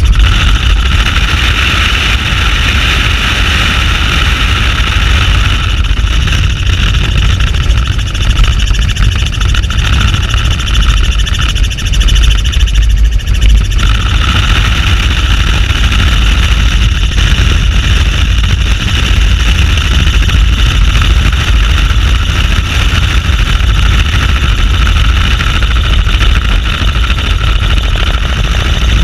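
Helicopter in flight: a steady, loud mix of rotor and engine noise, with heavy wind rumble on the camera's microphone.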